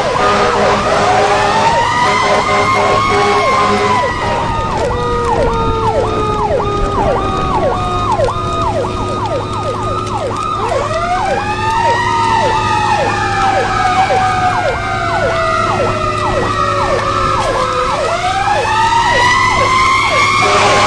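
Emergency vehicle sirens sounding together. One wails slowly up and down in pitch, twice. Another sweeps rapidly over and over from about four seconds in until near the end, and a steady multi-note tone is heard at the start and again at the end.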